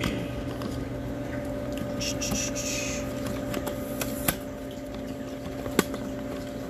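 Steady hum of a saltwater touch tank's filter pump running, with water circulating. A few sharp clicks, and a brief hiss about two seconds in.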